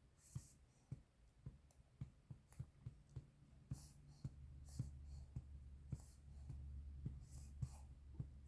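Soft, regular thumps of a hand patting a baby's back to bring up wind, about two pats a second, with a few brief soft rustles.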